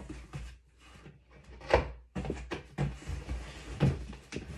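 Items being handled and rummaged in a cardboard box: scattered knocks and rustles, with one sharper knock just under two seconds in.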